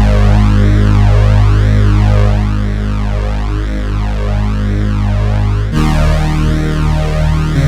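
Korg Polysix six-voice analog synthesizer holding a thick chord, its tone sweeping up and down in a slow regular cycle about once a second. The chord changes to a new one about six seconds in.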